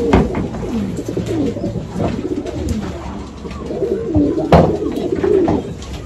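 Many domestic pigeons cooing at once, their low rolling calls overlapping continuously. A couple of sharp knocks cut through, the loudest about four and a half seconds in.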